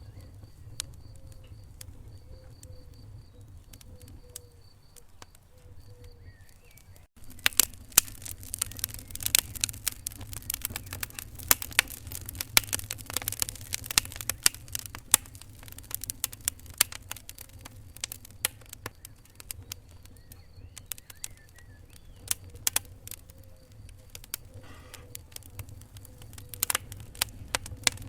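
Wood fire in a fireplace crackling and popping, with sharp snaps over a low, steady rumble of flames. The sound drops out for an instant about seven seconds in, and after that the crackles come thicker and louder.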